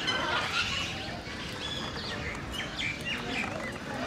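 Birds chirping: many short, quick chirps and calls in close succession.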